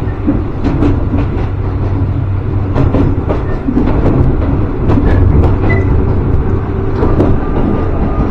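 Tobu Kameido Line commuter train running along the track, a steady low hum with many short clicks as the wheels pass over the rails.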